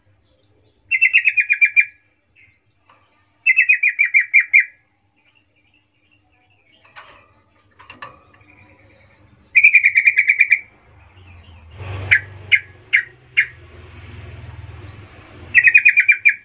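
Yellow-vented bulbul calling: four loud bursts, each a quick run of about eight notes stepping slightly down in pitch, with a few short single chirps between the third and fourth. A low rumble of background noise runs under the last few seconds.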